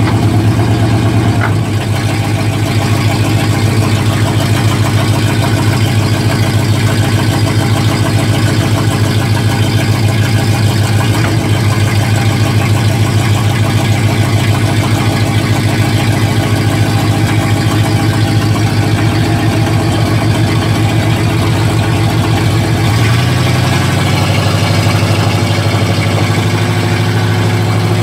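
A 1955 Pontiac truck's engine runs steadily under way, heard from inside the cab. Its note shifts about three quarters of the way through.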